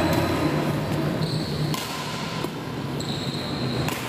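Badminton rally: sharp racket hits on a shuttlecock, about three in all, and two longer high squeaks of court shoes on the hall floor.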